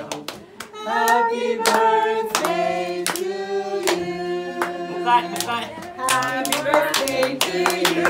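People singing a song while clapping in time, about three claps a second, in a small room.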